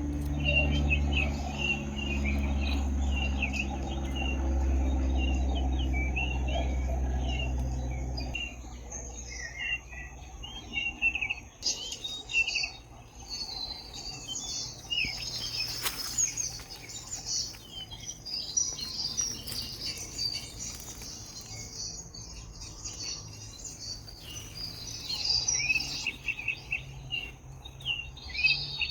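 Birds chirping and singing, many short calls overlapping, over a steady high insect trill. For the first eight seconds or so a low engine-like hum runs underneath, then stops.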